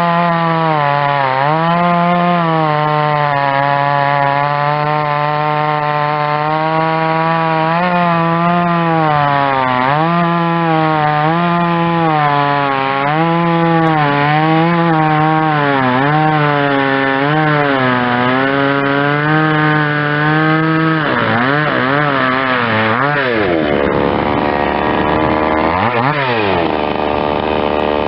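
Chinese 50cc two-stroke chainsaw cutting wood under load, its engine speed rhythmically dipping and recovering as it works through the cut. Near the end the engine speed swings down and up more widely.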